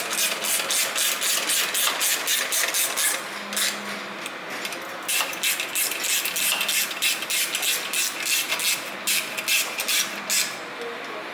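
Hand ratchet wrench clicking in quick runs, about four or five clicks a second, tightening the bolts of a motorcycle heel plate; the runs stop briefly twice.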